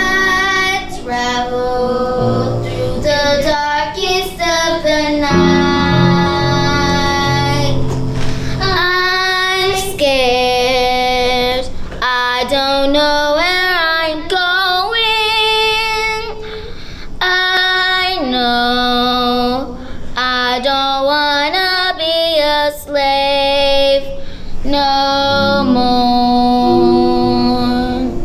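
A single high voice singing a slow solo with wide vibrato and long sliding runs. Sparse sustained instrumental chords play under it at the start and near the end, and drop away in the middle so the voice is bare.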